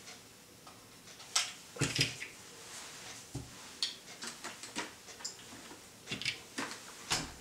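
Scattered light plastic clicks and knocks as a motorcycle headset unit and its mounting clamp are handled against a helmet shell, with parts set down on the table.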